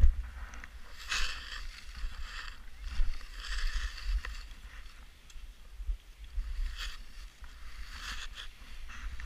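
Wind rumbling on the camera microphone, with short hissing scrapes of skis and clothing on snow a few times.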